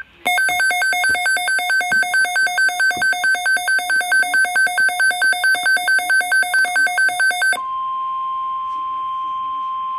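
Weather radio alert alarm: an electronic beep pulsing about four times a second for about seven seconds, then the steady NOAA Weather Radio warning tone, one unbroken pitch near 1 kHz, which signals that an alert message follows.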